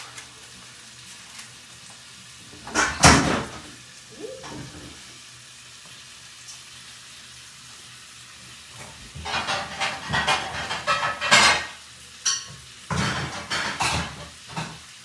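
Bacon sizzling in a frying pan, a steady low hiss, broken by louder bursts of clattering about three seconds in and twice more in the last six seconds.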